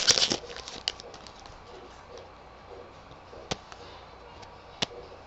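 Foil trading-card pack wrapper crinkling briefly, then a few light clicks and ticks as cards are handled and flipped.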